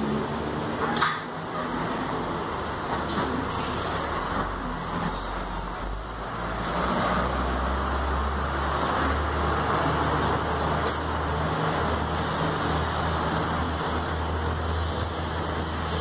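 Steady low rumble of road traffic, swelling for a few seconds in the middle as a vehicle passes, with two sharp clicks, about a second in and near the end.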